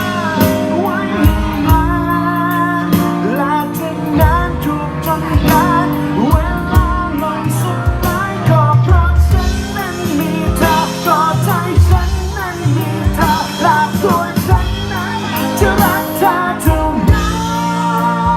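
Thai pop song: a voice sings a wavering melody over a band, with a regular drum beat underneath.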